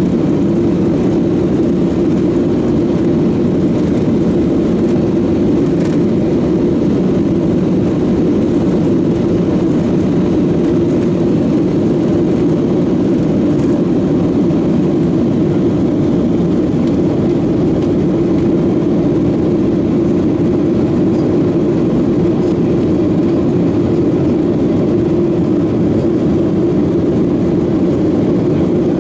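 Boeing 737-800's CFM56-7B turbofan engines at takeoff thrust, heard inside the passenger cabin as a steady, even drone through the takeoff roll, liftoff and initial climb.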